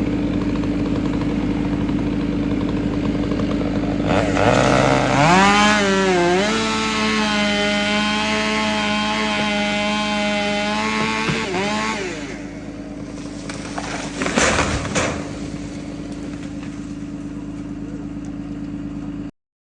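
A chainsaw is throttled up about four seconds in, holds a steady high whine at full speed for several seconds, then drops back near the twelve-second mark, over the steady hum of an idling engine. A few sharp clatters follow.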